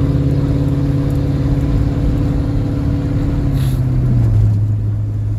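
Vehicle engine and road noise heard from inside the cabin while driving, a steady low hum whose pitch drops to a lower steady note about four seconds in.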